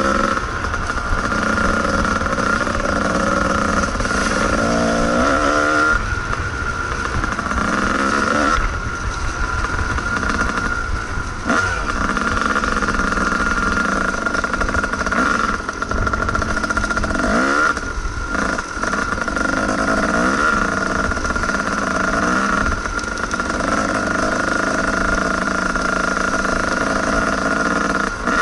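Kawasaki KDX220 two-stroke dirt bike engine heard close from on board as it is ridden, its revs rising and falling again and again with the throttle and gear changes, over a steady low rumble.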